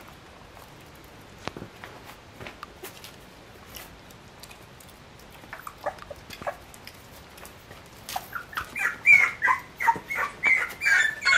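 A three-week-old San'in Shiba puppy whimpering: a rapid string of short, high squeaking cries, several a second, that starts about eight seconds in and grows louder. Before that there are only faint scattered clicks.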